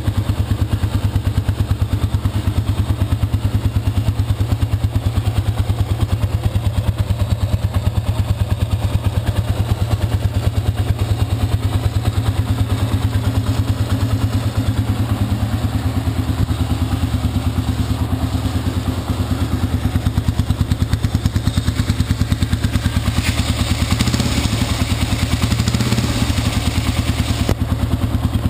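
2003 Honda CRF150F's air-cooled single-cylinder four-stroke engine idling steadily through its stock exhaust, a rapid, even pulse that runs smoothly.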